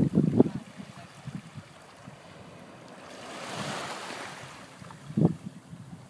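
Wind buffeting the microphone in gusts, strongest at the start and again about five seconds in. In the middle a soft wash of small waves on the shore swells and fades.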